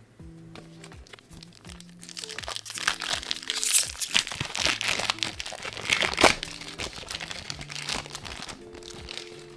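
Foil wrapper of a Pokémon trading-card booster pack crinkling as it is handled and opened, loudest from about two to seven seconds in, over soft background music.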